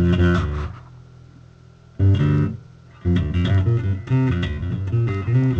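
Electric bass guitar played in short runs of notes, with two brief breaks where a note is left ringing, about a second in and again near the middle.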